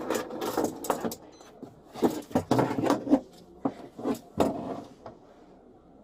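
Rapid, irregular knocks, scrapes and rattles of handcuffs and a body moving about in a patrol car's back seat as a handcuffed person works her hands free. The noise stops about five seconds in, leaving a low hiss.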